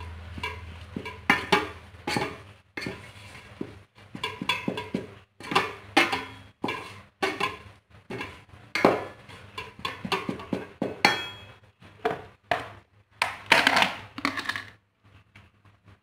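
A utensil scraping and knocking against a metal pot as fried rice is stirred and mixed, in irregular strokes a few times a second, stopping about a second before the end.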